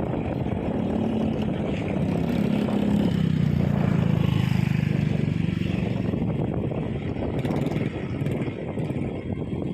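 A heavy engine running, growing louder about three seconds in and easing off again after about six seconds.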